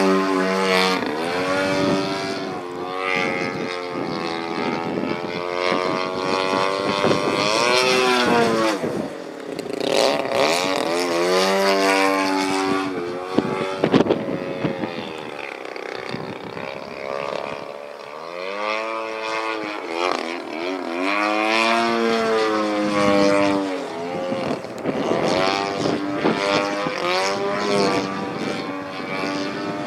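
50cc gas engine of a 30% scale Sbach 300 radio-control aerobatic plane in flight, its pitch rising and falling again and again as the throttle is worked through manoeuvres and the plane passes by.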